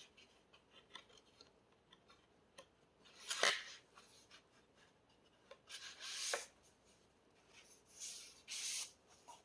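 Album packaging being handled: paper and card rubbing and sliding in three short swishes, with light taps and ticks between.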